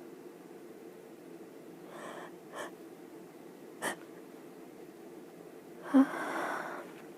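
A person breathing between sneezes: soft breathy sounds about two seconds in, a brief sharp one near four seconds, and a louder sudden burst about six seconds in that trails into a short breathy rush. A faint steady hum runs underneath.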